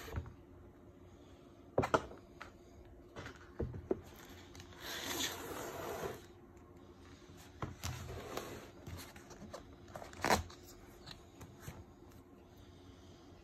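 A hardcover book and its cardboard slipcase being handled on a wooden table: a few sharp knocks and taps, and a longer rubbing, sliding sound of board against board about five seconds in.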